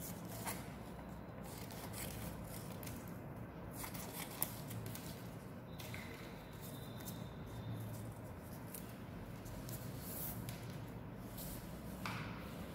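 Scissors snipping purple craft paper: faint short cuts and clicks, one sharper click a little after four seconds, over a steady background hiss.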